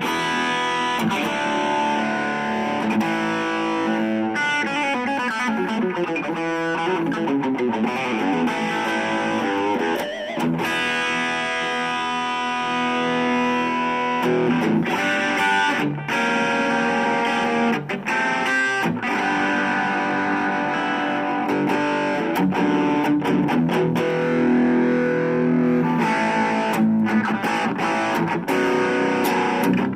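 Harley Benton CST24-HB electric guitar played through a Blackstar Fly 3 mini amp with a distorted tone: a continuous passage of notes and chords, with some sliding notes.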